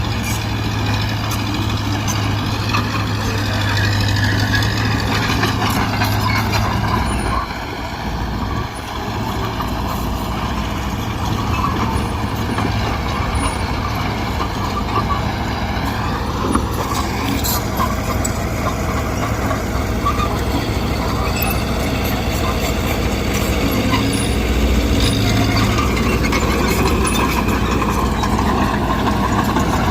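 Mitsubishi BD2G bulldozer's diesel engine running steadily under load as it works, with the engine note dipping briefly about seven seconds in and picking up again.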